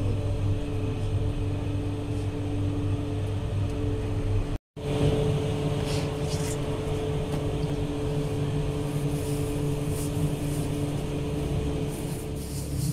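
Steady machine hum of a bakery's revolving-hearth oven running, with a few steady held tones in it. It drops out for a moment about a third of the way in, and there are a few light clicks later on.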